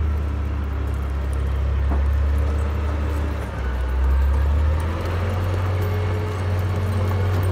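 Diesel engine of a Komatsu GD675 motor grader running under load as it plows snow with its front blade, a steady low drone whose note shifts up about four to five seconds in.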